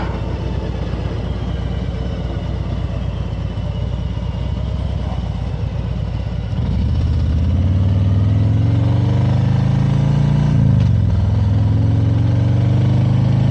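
Touring motorcycle engine running at low revs, then growing louder about six and a half seconds in as it accelerates with a climbing pitch. The pitch drops briefly at an upshift about ten and a half seconds in, then climbs again.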